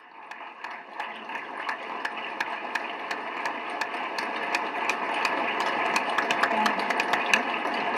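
Audience applauding: a dense run of many irregular claps that swells slightly.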